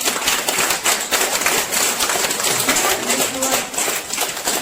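Audience applauding: a dense, irregular run of hand claps, with voices faintly underneath.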